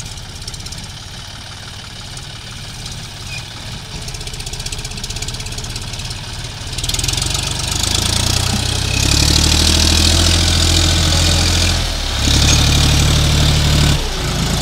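John Deere 5050D tractor's three-cylinder diesel engine running under load as it pulls a loaded trolley through mud. It gets much louder about halfway through and stays loud, with two brief dips near the end.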